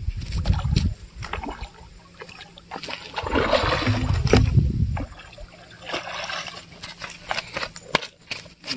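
A large hooked carp thrashing at the water's surface as it is hauled to the bank on a line, making several bursts of splashing.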